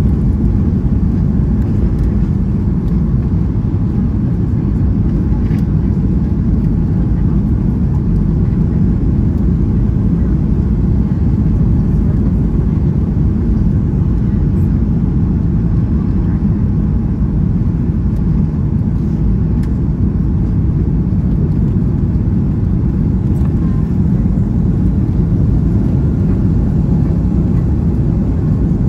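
Steady low rumble of a Boeing 757-200's engines and the airflow, heard inside the cabin from a window seat behind the wing on final approach to landing.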